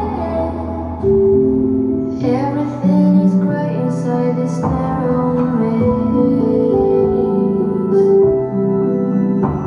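Music: a slow song with sustained keyboard notes and a held, wordless voice-like line that glides down about two seconds in.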